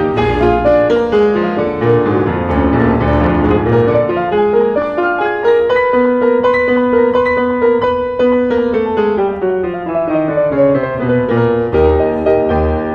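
Grand piano and string orchestra playing a classical piano concerto. Dense piano passages give way to a long held note that then sinks gradually, and the full texture returns near the end.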